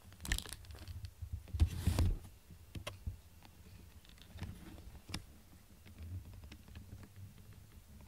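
A cat scuffling with a small fabric toy on a foam play mat: rustling, soft thumps and scattered clicks, busiest in the first two seconds and sparser after.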